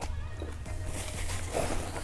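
Chewing of a mouthful of pressed Cuban sandwich, then a paper napkin rustling against the mouth near the end, over background music.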